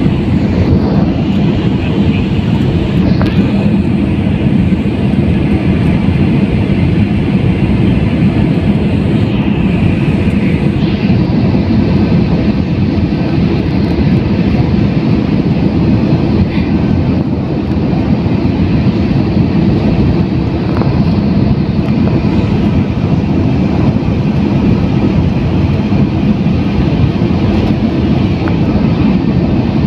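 Turbofan airliner heard from inside the cabin: a steady, loud drone of engines and rushing air, deepest in the low end with a faint steady hum.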